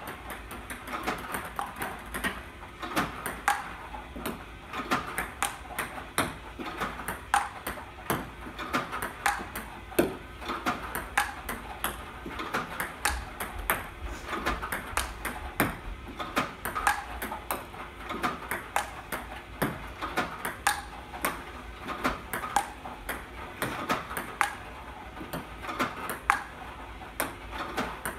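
Table tennis balls fed by an iPong Pro robot in a steady drill: a rapid, even run of sharp plastic clicks as the balls bounce on the table and are struck back with a Stiga Pure Color Advance paddle.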